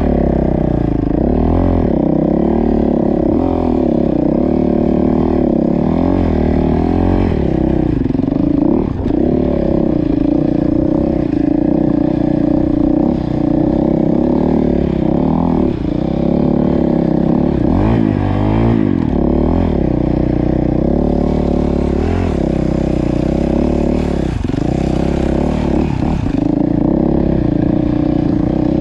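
Dirt bike engine running under load on a snowy trail, its pitch rising and falling over and over as the throttle is worked. Between about 21 and 26 seconds a hiss joins in on top of it.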